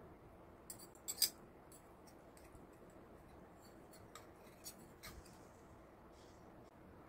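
Metal fork and spoon clinking and scraping against a ceramic bowl while twirling noodles. A quick cluster of sharp clicks about a second in, then a few fainter ticks.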